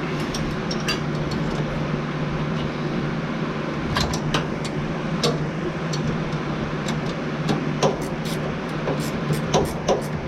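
Irregular metallic clicks and taps of hand tools working on the fuel-pump mounting bracket, coming faster in the last few seconds, over a steady low hum.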